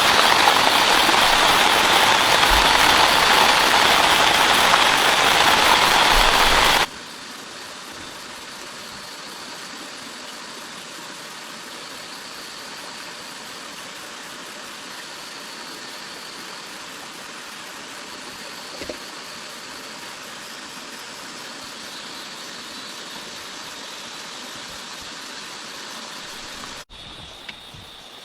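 Heavy rain with a loud, steady hiss that cuts off suddenly about seven seconds in. After the cut comes a much quieter, steady forest background with a faint, high insect whine.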